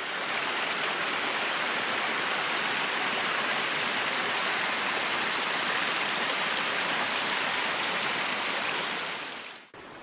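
Small mountain brook running over mossy boulders: a steady, loud rush of water that cuts off suddenly near the end.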